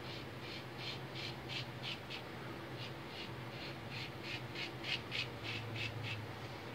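Single-edge safety razor, a 1912–14 Ever Ready lather catcher with a PAL blade, scraping lathered stubble on the neck in short strokes, about three a second, with a brief pause partway through.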